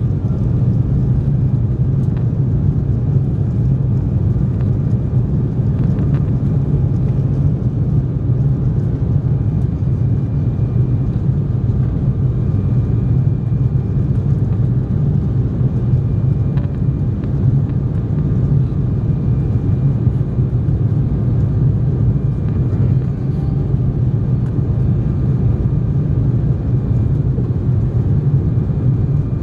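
Steady low roar inside the cabin of an Embraer 190 airliner climbing after takeoff: its two GE CF34-10E turbofan engines and the air rushing past the fuselage.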